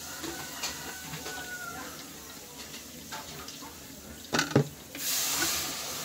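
A metal spoon scraping passion fruit pulp and seeds out of the halved shells into a mesh sieve, with small clicks and two sharp knocks about four and a half seconds in. From about five seconds a steady hiss sets in.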